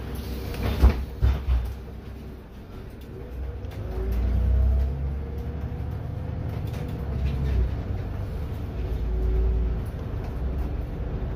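Solaris Urbino 12 IV city bus running, with a few sharp knocks about a second in, then a low drone that swells twice as the bus drives on.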